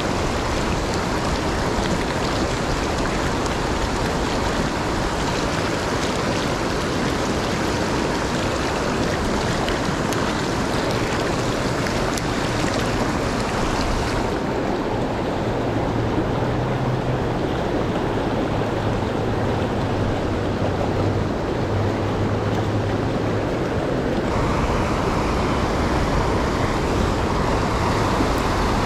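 Steady rush of river current. Its higher hiss thins out about halfway through and comes back some ten seconds later.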